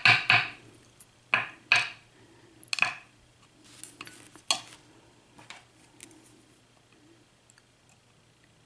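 Small metal parts of a disassembled euro cylinder lock clinking and tapping as the pins and parts are handled: a handful of light metallic clicks, growing sparser and fainter near the end.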